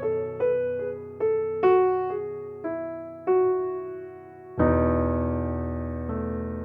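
Background music: a gentle piano melody of single notes, ending on a held chord struck about halfway through.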